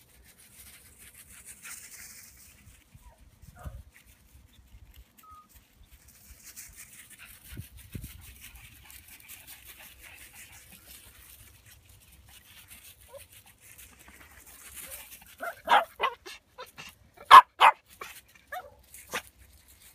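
Small puppies yapping: a quick run of several sharp, high barks in the last few seconds, after faint scuffing on gravel.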